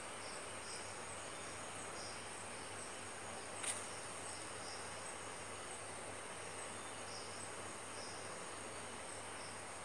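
Insects chirping in the background: a steady high-pitched trill with short chirps every half second to second over a faint hiss and low hum. A single sharp click comes nearly four seconds in.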